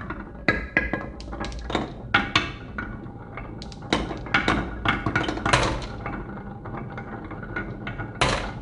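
Marbles rolling and clattering down a wooden marble run track: many irregular sharp clicks and knocks over a steady rolling rumble.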